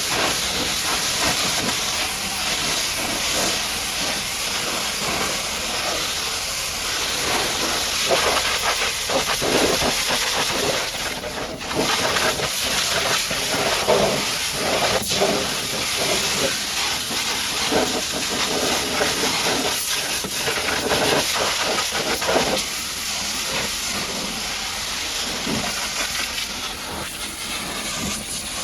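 Pressure washer's high-pressure water jet spraying mud off a truck: a continuous loud hiss that swells and shifts as the spray moves over the surfaces, easing briefly about eleven seconds in.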